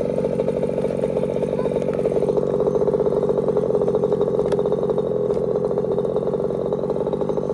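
Losi 5ive-T's Zenoah G320 32cc two-stroke gas engine idling steadily through a silenced big-bore exhaust.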